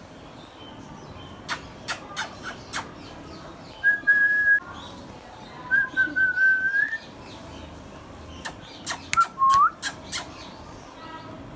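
Indian ringneck parakeet whistling: a short level whistle, a longer one that rises slightly at its end, and near the end a short upward-sliding whistle. Sharp clicks come in two scattered clusters.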